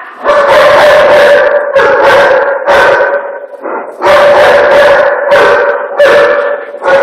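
An animal calling loudly over and over: about seven drawn-out calls, each around a second long, at a steady pitch, with short breaks between them.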